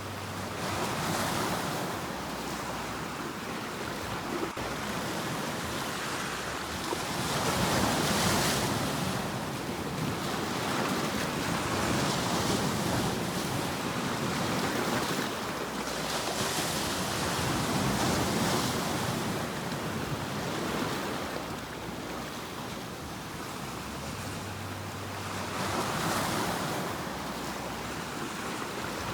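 Ocean waves breaking and washing on a shore, surging and receding every few seconds in a steady rhythm of surf.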